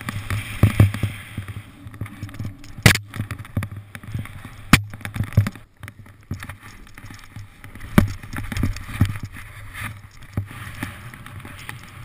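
Muffled rumble of a GoPro camera riding down powder snow, the rider sliding and chattering over the snow with frequent thumps and several sharp knocks against the camera housing.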